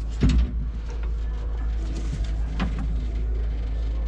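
Steady low background hum, with a few light knocks and clinks as the copper supply lines and their fittings are handled: one about a quarter second in and another around two and a half seconds in.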